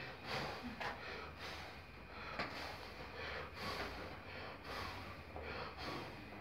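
Faint breathy sounds from a man: a series of short puffs of breath at irregular intervals, with no clear words.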